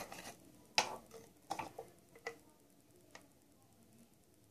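Faint, light clicks and taps, about five spread over the first three seconds, from small nail polish and remover bottles being handled at a table.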